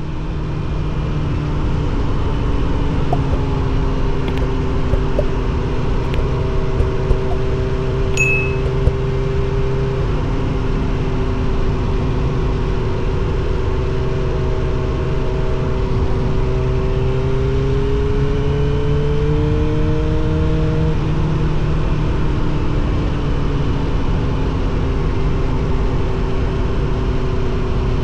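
Suzuki GSX-R750 SRAD's inline-four running through a Yoshimura R77 exhaust at a steady cruise, its pitch drifting slowly up and down over a constant rushing noise.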